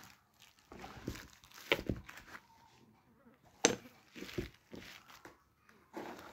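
Plastic wrapping crinkling and rustling as new hammers are pulled out of it by hand. There are a couple of sharp clinks or knocks from the hammers, the loudest about halfway through.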